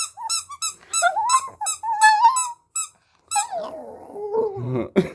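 Pet dog whining and yipping in a quick string of short, high squeaky notes with a rising whine among them. About three and a half seconds in comes a longer howl-like whine sliding down in pitch.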